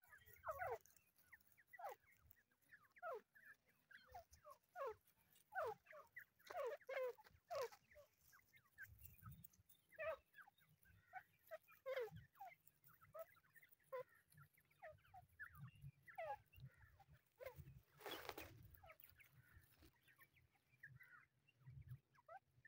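Young grey francolins peeping: many short, falling calls, singly and in quick little runs, at irregular intervals. A short rush of noise about eighteen seconds in.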